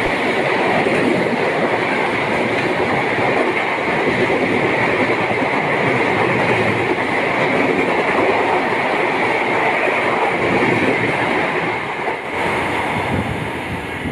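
Express train's LHB coaches passing at speed close by through a station without stopping: a steady loud rush of wheels on rail with a clatter over the rail joints and a continuous high hum. The noise eases near the end as the train clears.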